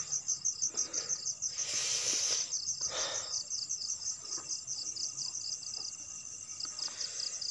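Crickets chirping at night in a fast, even pulse, with a brief rustle about two seconds in.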